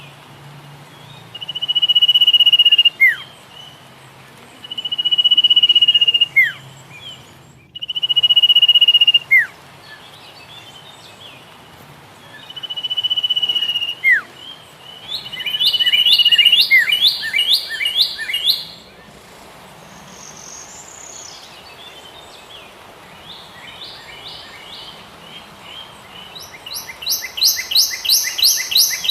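Songbird singing: a long, steady, high whistled note ending in a quick downward slur, repeated four times a few seconds apart. Rapid runs of chirping notes follow about halfway through and again near the end.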